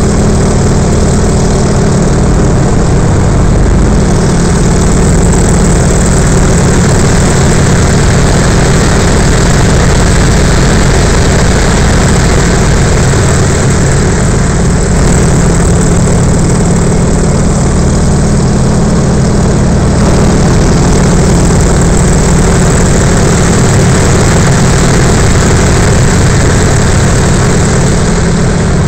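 Yak-52's nine-cylinder M-14P radial engine and propeller running steadily, loud inside the cockpit.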